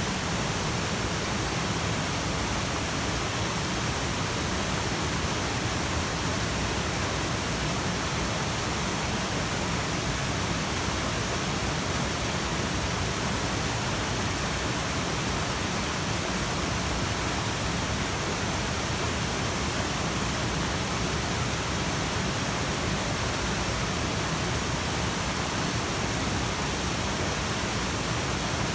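Steady rush of water in a mountain stream with waterfalls.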